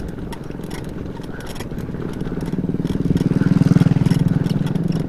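Bicycle rolling over a rough macadam stone road, with the tyres crunching on loose stones and the bike rattling. A low steady hum grows louder from about two seconds in.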